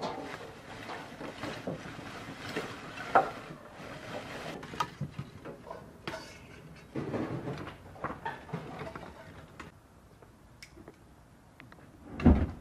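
Lumps of charcoal clattering as they tumble from a sack into a metal barbecue grill and are shifted about by hand. Near the end, a short loud whoosh as the fuel-soaked charcoal catches fire.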